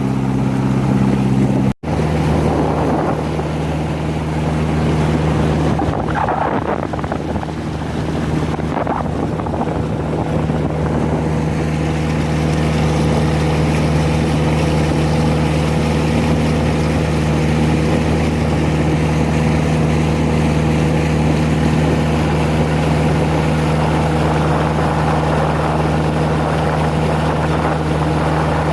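Toyota Kijang 4K four-cylinder car engine driving a klotok river boat, running steadily under way, with wind and water rushing past. The engine note is smooth and not noisy; the sound cuts out for an instant about two seconds in.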